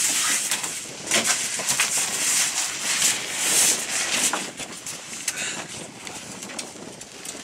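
Steady hiss of wind and sea on an open boat deck, louder in the first half, with a few sharp knocks and slaps as a small shark is handled on the deck.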